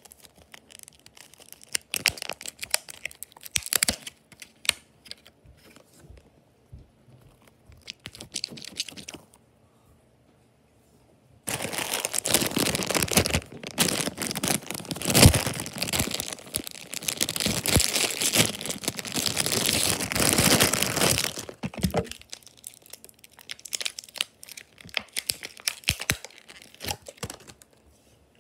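Toy packaging being torn open and crumpled by hand: scattered crinkles at first, then after a short pause about ten seconds of loud, dense tearing and crinkling, settling back to occasional crackles as the clear plastic blister tray is handled.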